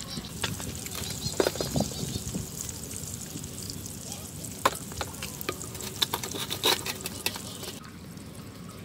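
Chopsticks clinking and scraping against a stainless steel bowl as powder is stirred into water, with a paper packet rustling as the powder is tipped in at the start. The clinks are sharp and irregular, a few of them louder.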